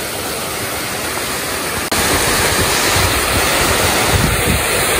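Steady rush of water pouring over a low concrete weir, getting louder about two seconds in.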